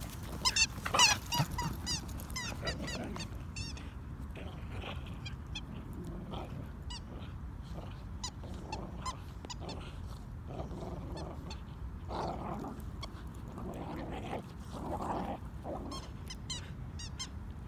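A whippet and a beagle play-wrestling, with many short high-pitched squeals and yelps. They are loudest in the first couple of seconds, sparser in the middle, and come thick again near the end.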